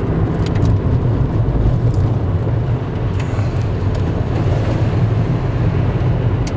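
Car cabin noise while driving on a wet road: a steady low engine and road hum with tyre hiss.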